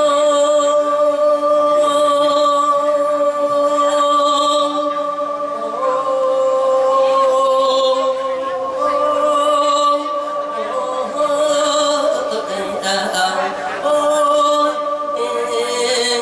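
Isan-style sung sermon: a voice chanting in long melodic phrases over steady held notes that change pitch a couple of times.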